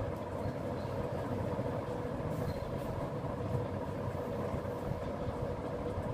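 Steady mechanical hum with a low rumble underneath, holding an even pitch throughout.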